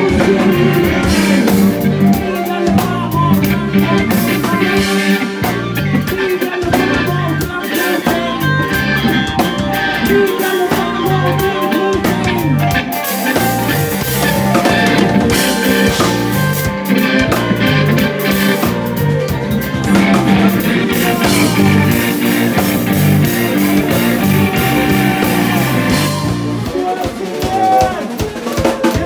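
Live band playing an instrumental passage: drum kit, bass and keyboards, loud and steady.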